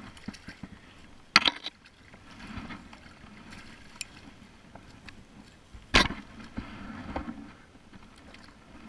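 Handling noise on a plastic sit-on-top kayak as a rope fish stringer with a metal clip is handled: two sharp knocks, about a second and a half in and again about six seconds in, among smaller taps and rustling.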